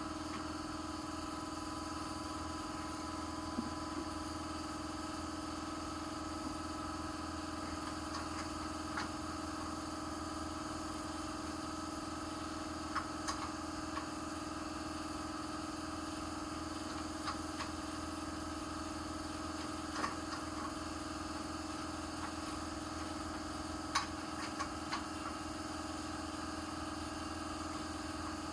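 A steady mechanical hum, with scattered light clinks and ticks of hand tools on metal as bolts are worked loose.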